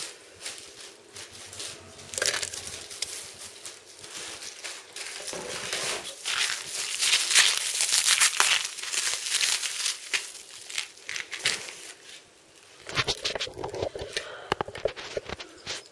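Clear plastic packaging film crinkling and crackling as it is handled and pulled apart by hand. It is loudest about halfway through, dips briefly, then comes back in a shorter burst near the end.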